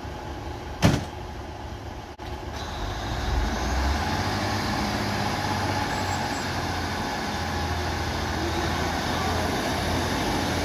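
British Rail Class 150 Sprinter diesel multiple unit pulling out of the station, its underfloor Cummins diesel engines throttling up about two and a half seconds in and then running steadily under power. A single sharp knock about a second in.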